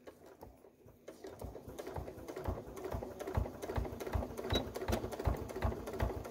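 Domestic sewing machine stitching a seam at a steady pace, its needle strokes making an even, rapid clatter that starts about a second in.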